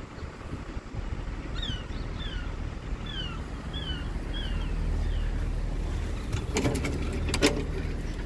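UK level crossing's audible warning alarm sounding at its reduced night-mode volume: a quiet falling tone repeated about twice a second, over a steady low rumble. A few sharp clicks come near the end.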